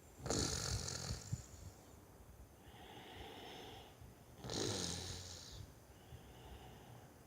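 A man snoring in his sleep: two long snores about four seconds apart, with a softer breath between them.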